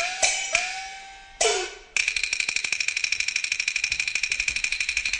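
Peking opera percussion: a few gong strokes whose pitch bends after each strike, with cymbal crashes, then about two seconds in a fast, even roll of about twelve strokes a second on drum and cymbals.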